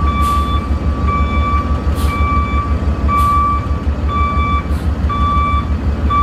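Flatbed tow truck's back-up alarm beeping about once a second while the truck reverses, over the low rumble of its running engine.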